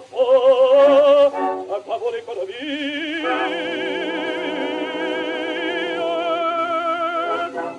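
Early acoustic 78 rpm recording of a bass-baritone singing in French with orchestral accompaniment: a short phrase, then one long held note with wide vibrato lasting about five seconds, after which the orchestra plays on alone near the end.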